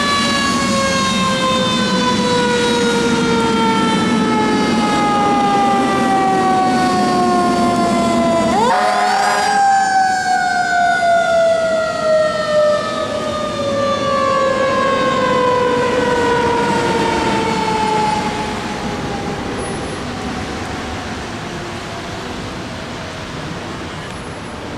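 Fire engine siren winding slowly down in pitch. About nine seconds in it is spun sharply back up, then it winds slowly down again, fading over the last few seconds as the engine moves away.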